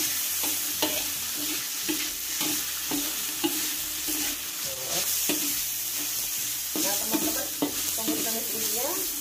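Ground beef and diced green beans sizzling in hot oil in a wok, stir-fried with a spatula that scrapes and knocks against the pan in quick, irregular strokes.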